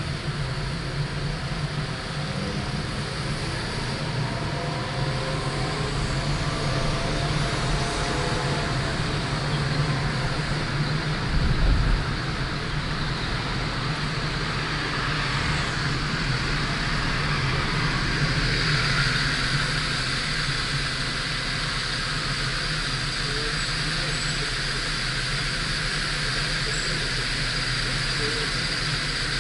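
Steady road and engine noise of a moving car, with a brief low thump about twelve seconds in.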